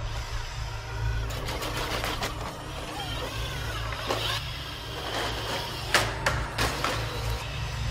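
Boston Dynamics' Handle, a wheel-legged robot, running: a steady mechanical hum with motor whine as it rolls, and a few sharp thumps from about six seconds in as it lands from jumps.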